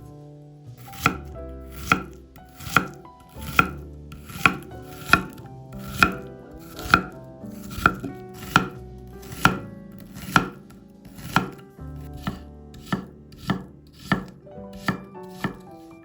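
A kitchen knife chopping on a cutting board: evenly paced knocks, a little more than one a second.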